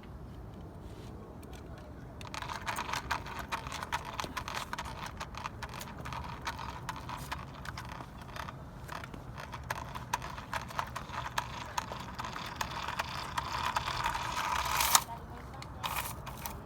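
Remote-control Lightning McQueen toy car's small electric motor and plastic gears whirring with a dense clicky rattle as it drives. It runs for about thirteen seconds, grows louder, cuts off suddenly, then gives one brief burst again near the end.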